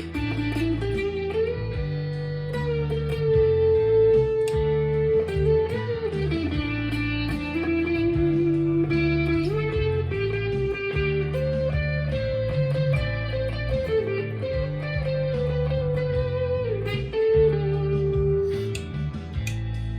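Stagg SEL-STD electric guitar with split-coil humbucker pickups, played through a Fender Mustang LT25 modelling amp. It plays a lead line of long held notes with string bends, over a low accompaniment.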